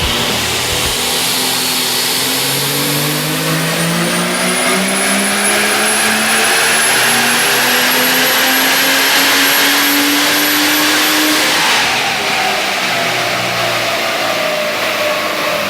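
Ford FG Falcon F6's turbocharged straight-six pulling at full load on a chassis dyno power run, revs climbing in one long steady sweep for about eleven seconds with a high whine rising alongside. Near the end the throttle closes and the revs fall away.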